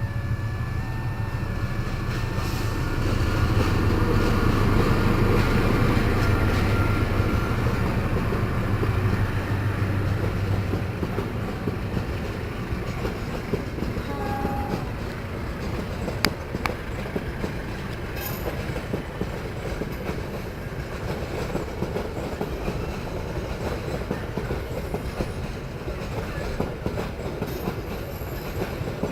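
Train passing over a level crossing, its wheels clattering on the rails over a continuous rumble. The rumble swells a few seconds in, then carries on a little quieter.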